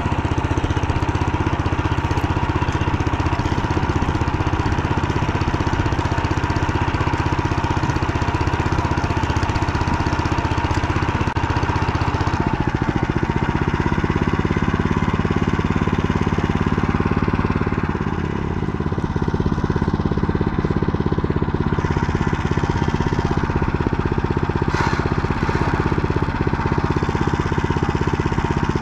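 Engine of a Motor Sich machine running steadily under way, its note shifting about 13 seconds in.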